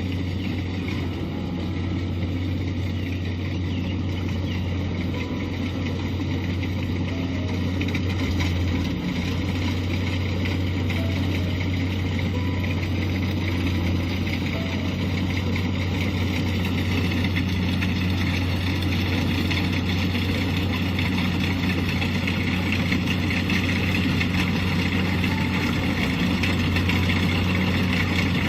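Kubota DC-70 combine harvester's diesel engine running steadily with a continuous low drone, growing slightly louder in the second half.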